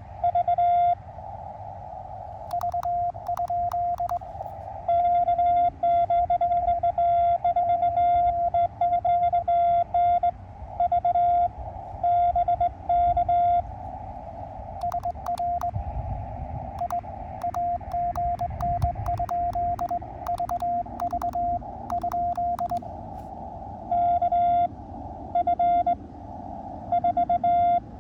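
Morse code from an Elecraft KX2 transceiver as a steady beep keyed on and off. Loud stretches of the operator's own sending on a cootie (sideswiper) key, heard as the rig's sidetone, alternate twice with a weaker station answering in Morse over receiver hiss. Faint clicks come during the weaker stretches.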